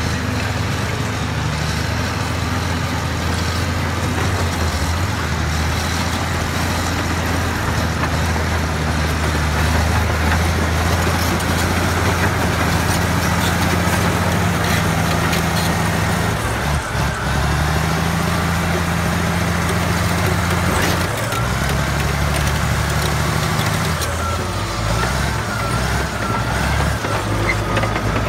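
Caterpillar crawler loader's diesel engine working under load, its note stepping up and down as it digs. Near the end a faint wavering whine rides over the engine.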